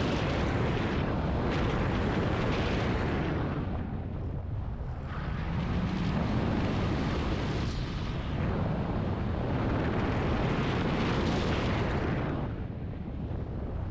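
Volkswagen Golf R's turbocharged four-cylinder engine and heavy wind buffeting on a hood-mounted camera as the car is driven hard around an autocross course. The noise swells under acceleration and drops away three times as the driver lifts for corners, about four, eight and twelve and a half seconds in.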